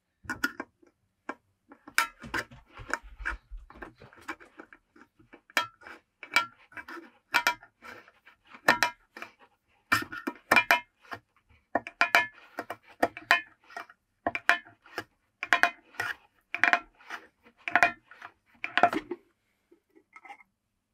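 Lid of a metal varnish tin being pried open with a thin metal tool worked around its rim: a run of irregular metallic clicks, scrapes and small clanks that stops near the end.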